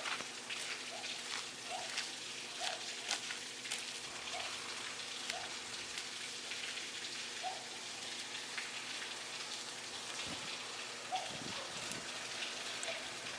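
Steady rain, with the irregular patter of individual drops striking a surface.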